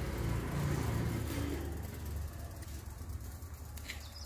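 A motor vehicle engine running with a low steady drone that grows a little quieter about two seconds in.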